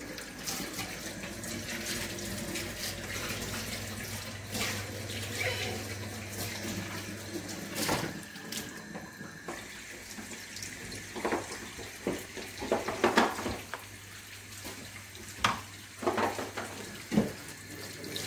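Gas hob burner hissing steadily over a low hum, with scattered knocks and clinks of dishes and utensils.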